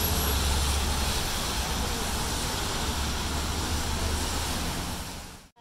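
Traffic on a rain-wet city street: a steady hiss of tyres on wet pavement over a low rumble, fading and then cutting off near the end.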